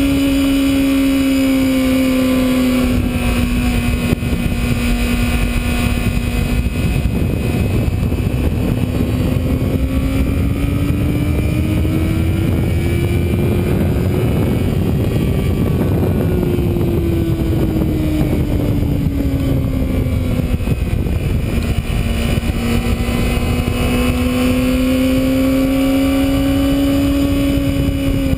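Sportbike engine at high revs, its pitch climbing slowly and falling again twice as the throttle is rolled on and off, under a steady rush of wind noise.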